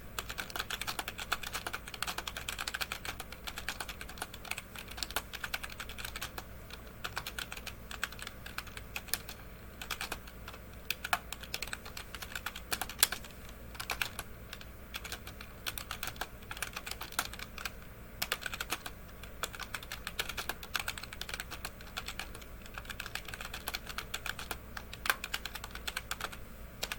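Typing on an iBuyPower computer keyboard: a fast, continuous patter of key clicks as a sentence is typed, with occasional louder keystrokes.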